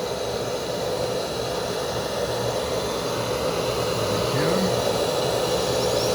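Dental lab micromotor handpiece grinding a 3D-printed temporary bridge, a steady whirring, with a brief rise in pitch a little past four seconds in.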